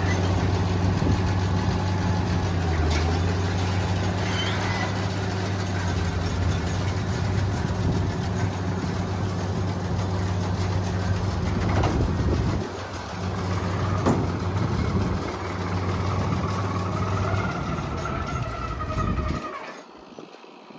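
Farm tractor engine running steadily, with a few knocks about two-thirds of the way through, cutting off sharply near the end.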